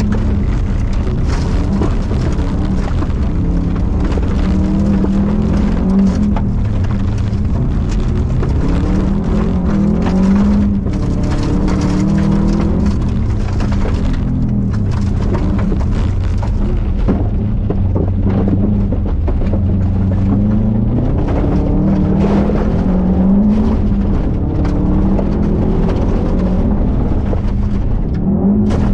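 Interior recording of a 2002 Subaru Impreza WRX's turbocharged flat-four engine driven hard, the revs climbing and dropping again and again through gear changes, over a steady rush of tyre and gravel noise.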